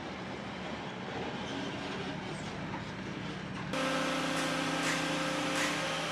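Skid steer engine running as a steady rumble. A little over halfway through, the sound cuts abruptly to a steady electric hum with several fixed tones.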